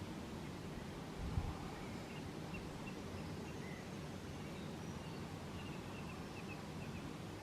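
Steady low outdoor rumble with faint, short bird chirps scattered through it and a single soft knock about a second and a half in.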